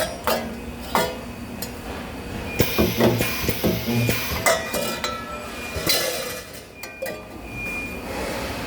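Sheet-metal parts clinking and knocking as they are handled at a spot welder, with short low hums of the welder firing about two and a half and four seconds in.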